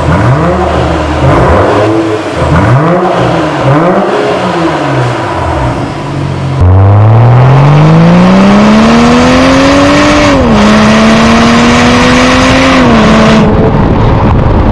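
BMW X7 xDrive40i's turbocharged 3.0-litre straight-six through an Fi Exhaust valvetronic cat-back: first several short throttle blips with the car standing still, then a hard acceleration in which the engine note climbs steadily and drops twice as the automatic gearbox upshifts.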